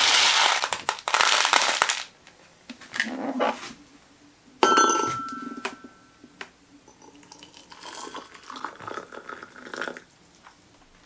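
Polymorph plastic pellets scooped and rattling in a plastic tub, then a sharp clink with a brief ring from a ceramic mug a little before halfway. Hot water is then poured from a kettle into the mug, a few seconds of pouring that rises in pitch as the mug fills, to soften the polymorph.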